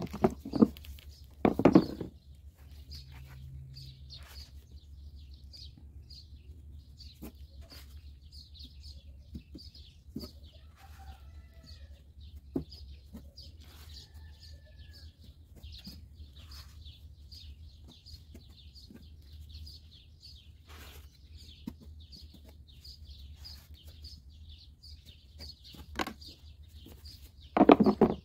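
Plastic dough trays being handled and set down on a wooden board, knocking loudly at the start and again near the end, with lighter clicks as dough balls are moved. Under it a high chirp repeats about twice a second, and a short call comes about 11 seconds in.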